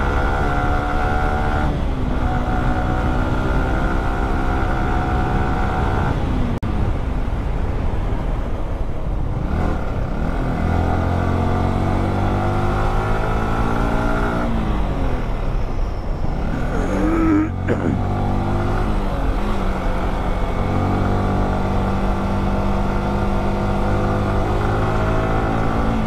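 Motorcycle engine under way, its note climbing under throttle and dropping back at each gear change, several times over.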